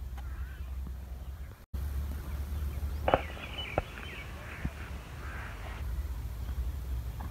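Open-air field ambience: a steady low rumble with a brief dropout about one and a half seconds in. After the dropout come a couple of sharp clicks and faint animal calls.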